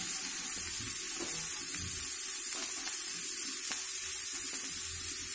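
Chopped onions and green chillies sizzling in a little oil in a nonstick frying pan: a steady hiss with a few faint clicks.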